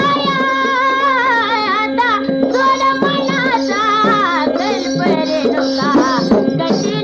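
Marathi devotional folk song to Yellamma in the chaudki geet style: a voice singing over a steady held drone and rhythmic percussion strokes.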